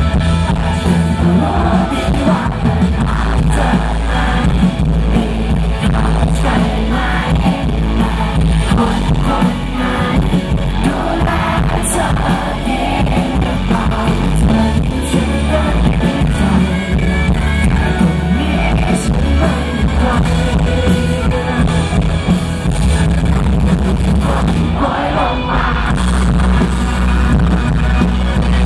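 Loud live performance by a pop-rock band: a male lead vocalist singing into a handheld microphone over drums, bass, guitar and synthesizer, heard through the PA.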